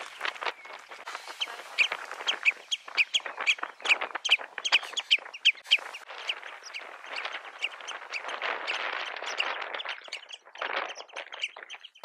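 Wild birds calling: a rapid string of short, high chirps through the first half, then fainter calls over a steady noisy background.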